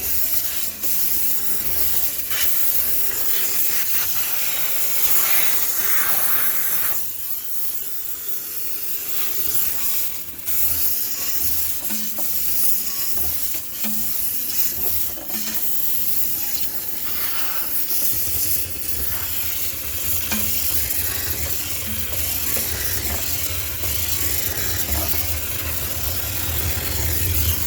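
High-pressure steam cleaner jetting steam with a steady hiss, easing off briefly about seven and ten seconds in. From about eighteen seconds a low rumble runs underneath.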